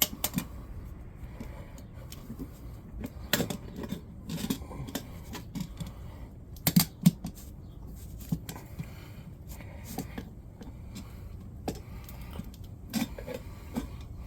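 Screwdrivers prying a mini bike tire's bead over a metal rim, giving irregular metallic clicks and knocks, a few of them sharper, about three and a half and seven seconds in.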